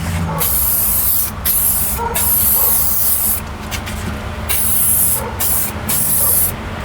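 Aerosol spray-paint can hissing in a series of short bursts, about seven in all, as paint is sprayed onto a car's bare firewall. A steady low rumble runs underneath.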